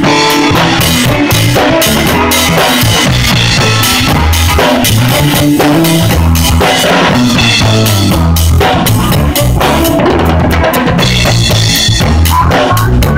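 A live rock band playing, heard from right beside the drum kit: drums and cymbals are loudest, over a bass line of low notes stepping in a steady rhythm.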